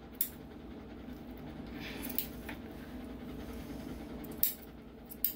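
A Goldendoodle panting, with a few short snips of grooming scissors trimming the fur between its paw pads.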